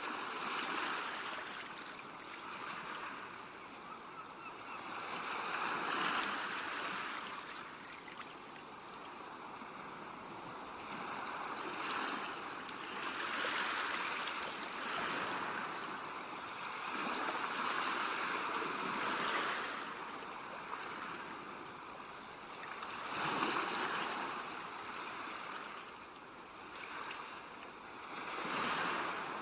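Ocean surf: waves breaking and washing in, a steady hiss that swells and falls back about every five seconds.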